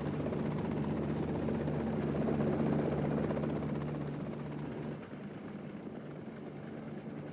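Lockheed CL-475 rigid-rotor helicopter flying low: a steady engine hum with fast rotor beating, which drops abruptly in level about five seconds in and carries on quieter.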